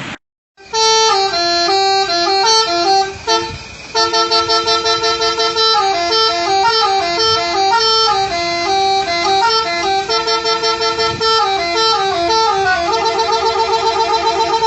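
Multi-tone 'telolet' horn playing a melody, its notes stepping up and down, starting about half a second in with a short break near four seconds. Near the end it switches to a fast warbling trill.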